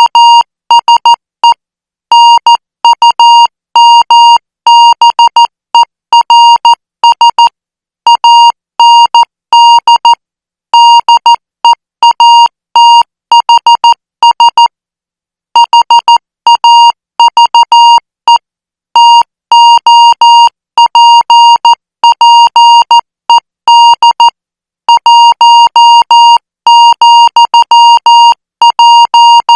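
Morse code practice tone near 1 kHz, keyed in dots and dashes at 14 words per minute and sent in groups with short gaps between them. There is one longer pause about fifteen seconds in.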